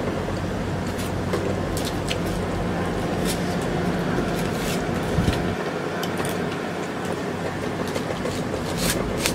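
Light clicks and scrapes of a metal spoon against a banana-leaf rice wrap, with eating sounds, over a steady low background hum.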